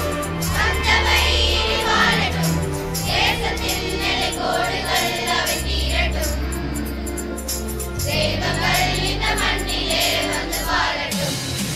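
A girls' choir singing together through microphones over a musical accompaniment of held low notes.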